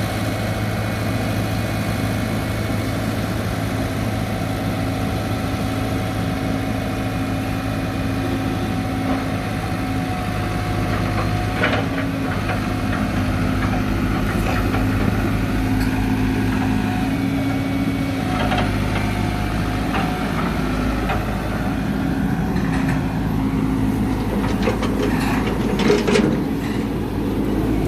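Diesel engine of a Cat 313 excavator running steadily, with a few sharp metallic clanks in the second half.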